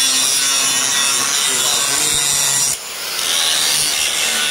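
Handheld angle grinder grinding metal, a steady high grinding noise that dips briefly about three seconds in and then resumes.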